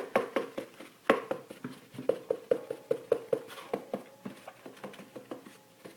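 A paper towel roll patting a cat's body: a quick run of soft thumps, about three to four a second, with a short break about a second and a half in.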